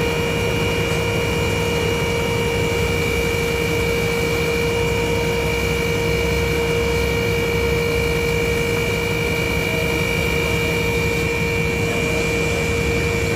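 Truck-mounted crane's hydraulic power pack whining steadily as the telescopic boom extends. Underneath is the steady running of the UD Quester CWE280 truck's engine.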